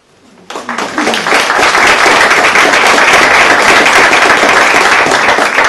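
Small audience applauding: dense hand clapping that starts about half a second in, is at full strength within a second, and carries on steadily.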